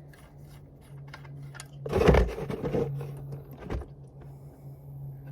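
Oil drain plug coming out of a 2005 Toyota RAV4's oil pan as the old oil begins to drain, over a steady low hum. A loud burst of noise comes about two seconds in and a shorter one near four seconds.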